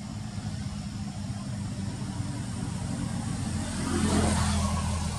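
A motor vehicle engine running steadily, with a louder rushing swell about four seconds in.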